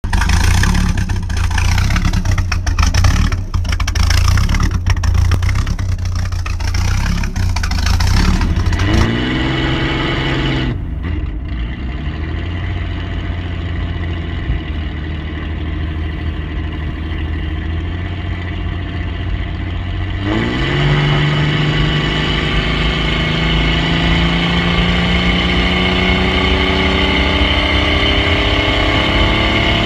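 Jeep Cherokee engine through a custom straight-up hood exhaust stack. For the first nine seconds or so the exhaust is loud and rough at close range. Then, heard from inside the cabin, the engine rises in pitch, drops at a gear change, holds a steady note, and from about twenty seconds in climbs steadily under acceleration.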